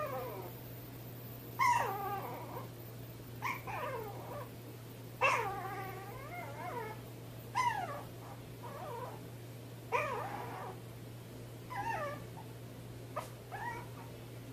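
Puppy crying in about a dozen short whines that fall in pitch, one every second or two, over a steady low hum.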